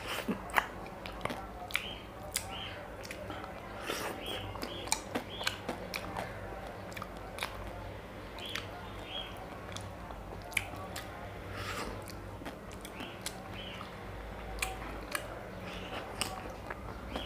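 A person biting and chewing a chocolate-coated chocobar ice cream bar, close up: irregular sharp crunches and clicks as the chocolate shell breaks, with chewing in between.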